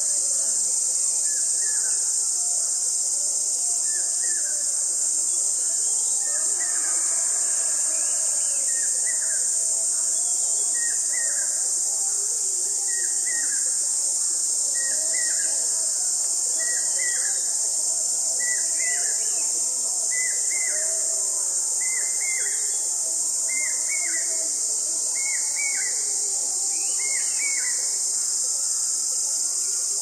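Steady high-pitched drone of insects such as crickets, with a bird repeating a short down-curving call every second or two, a little louder toward the end. Fainter bird sounds sit beneath.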